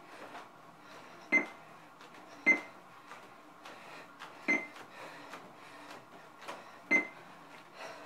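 Stepper-elliptical cardio machine being worked: a faint steady hum under four sharp metallic clanks with a brief ringing, spaced unevenly about one to two and a half seconds apart.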